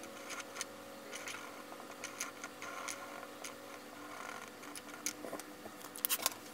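Felt-tip marker (Monami Namepen) drawing on paper: faint, irregular scratchy strokes of the nib, with a quick run of sharp clicks about six seconds in.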